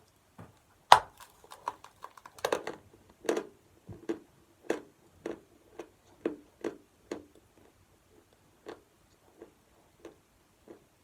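Chalk being bitten and chewed: a loud crunching bite about a second in, then crisp crunches about twice a second that grow fainter and sparser.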